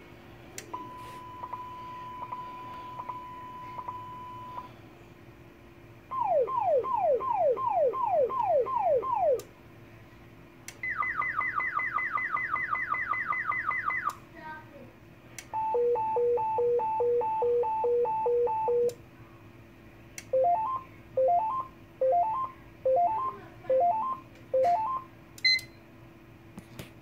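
Zetron Model 25 paging encoder sounding its five alert tones in turn, each lasting three to four seconds: a steady single tone, then a slow repeated falling sweep, then a faster, higher-pitched repeated falling sweep, then a two-tone high-low warble, then short rising chirps about one a second. The first tone is quieter than the rest, and a few short clicks fall between the tones.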